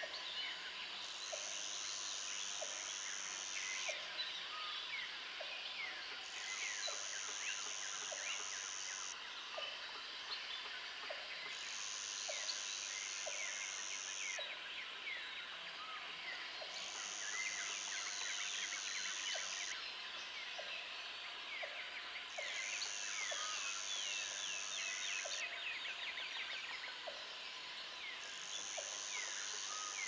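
Dense chorus of birds calling, with many short falling whistled notes. Under it, a high, even buzz lasts two to three seconds and repeats about every five seconds, and a short low note sounds about once a second.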